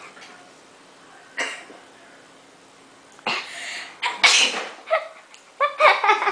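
A person sneezing, set off by tickling the inside of the nose: a rushing breath a little past three seconds in, then the loudest sharp sneeze about a second later.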